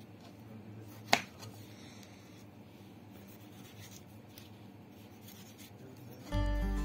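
Kitchen knife cutting tomatoes on a plastic chopping board: one sharp knock of the blade on the board about a second in, then faint cutting and rubbing sounds. Background music comes in near the end.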